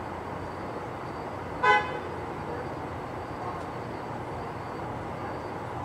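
A single short car horn toot about a second and a half in, over a steady background rumble.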